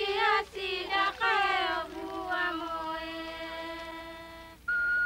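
Young Trobriand girls singing together, a chanted melody with bending notes that settles into one long held note and breaks off shortly before the end. A new, higher held note starts just after.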